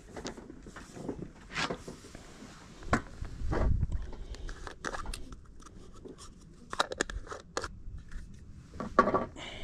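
Close handling noises as a fishing hook is rebaited: scattered clicks, scrapes and light rustling, with a dull low thump about three and a half seconds in.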